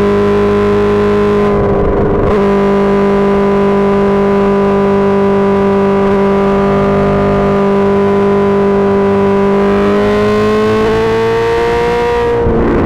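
Suzuki GSX-R1000 inline-four through an M4 GP Series slip-on exhaust, running loud at high, nearly steady revs. The note breaks briefly about two seconds in, climbs gently in pitch near the end, then breaks again.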